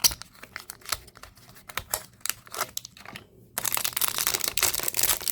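Small cardboard advent-calendar box being handled and opened, with light clicks and taps, then a cookie's plastic wrapper crinkling steadily for the last second and a half or so.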